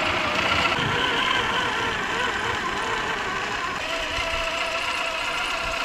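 Traxxas TRX-4 1/10-scale RC crawler on Traxx tank tracks driving, its electric motor and gears giving a steady whine that wavers slightly in pitch.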